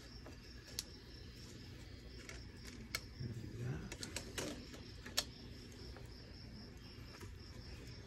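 Quiet handling sounds: a few light clicks and taps as a wooden hive frame and pieces of honeycomb are handled. Behind them runs a faint, steady, high-pitched pulsing chirp.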